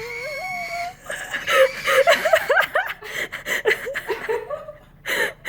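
A person laughing in quick, chuckling bursts, after a held, gliding note in the first second.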